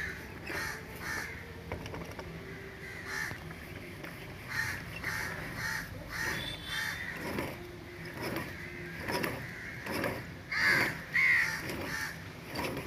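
A bird calling over and over in short calls, two louder calls near the end.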